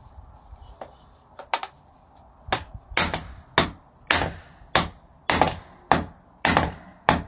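Drift mallet striking a 50 mm tube slipped over a Yamaha FJR1300 fork tube, driving the fork's middle bush down into the slider. A couple of light taps, then a steady run of about ten hard blows, roughly two a second.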